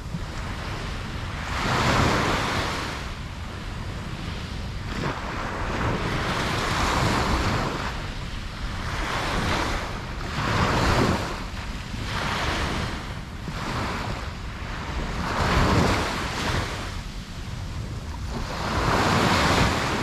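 Ocean waves breaking and washing on a beach, each surge swelling and fading every few seconds, with wind rumbling on the microphone underneath.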